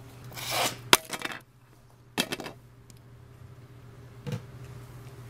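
Handling noises from working on a solar panel's plastic junction box: a rustle, then a single sharp click about a second in, followed by a few short scrapes and a faint tap.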